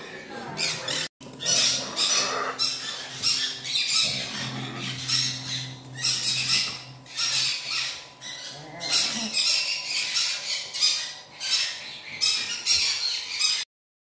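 Small parrots squawking: a run of harsh, scratchy calls repeated several times a second, with a brief break about a second in, stopping abruptly near the end.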